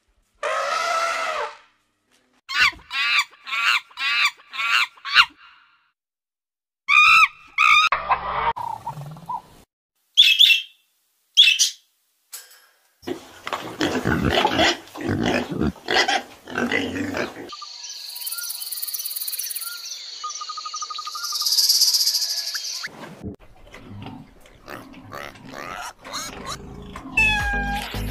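Calls and cries from several different animals, heard in short separate bursts that change abruptly from one kind of call to another.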